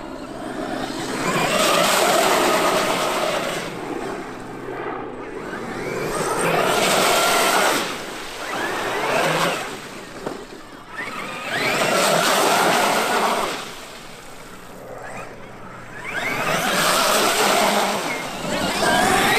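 Traxxas X-Maxx brushless electric RC monster truck driving in repeated bursts of throttle: about five runs, each a rising motor whine over tyre noise, every few seconds.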